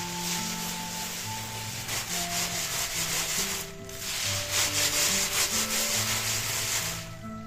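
Dried coffee beans rustling and scraping as a hand rakes and rubs them across a woven bamboo tray, with a short break about halfway through.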